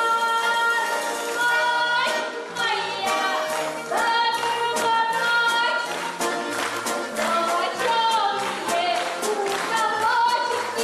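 A song playing: a sung melody with wavering pitch over a regular percussion beat, after a couple of seconds of held instrumental chords.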